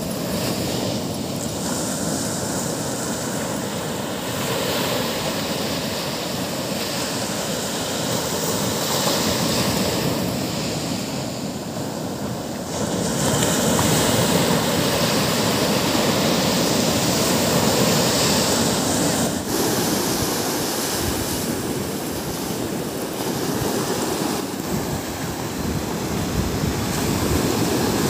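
Ocean surf breaking and washing up a sandy beach, a continuous rush of waves that grows louder about halfway through.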